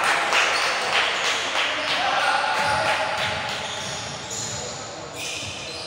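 Basketball game sounds in a large echoing gym: a basketball bouncing on the hardwood court, with short pitched cries from players or shoe squeaks.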